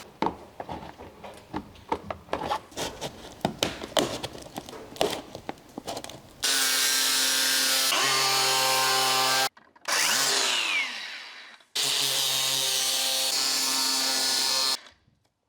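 A few seconds of irregular knocks and clicks, then a power cutting tool cutting the car's metal heat shield in two runs of about three seconds each. After the first run the tool winds down with a falling whine; the second run stops suddenly.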